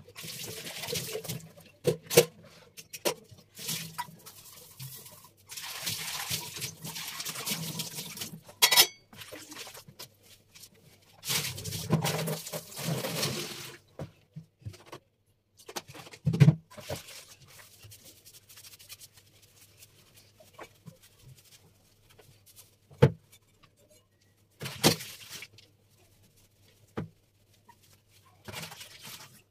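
Water running and splashing at a kitchen sink in several bursts of a few seconds, with sharp knocks and clatter of kitchenware being handled in between.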